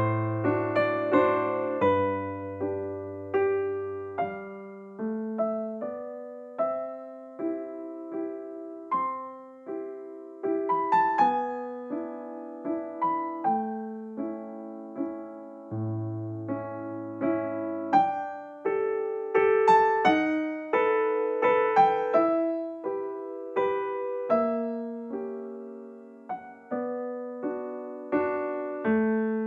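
Background piano music: a gentle melody of struck notes, each fading away, over slower bass notes.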